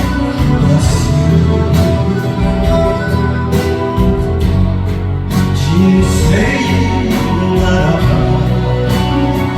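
Enka song music: a karaoke-style backing track with steady, sustained accompaniment.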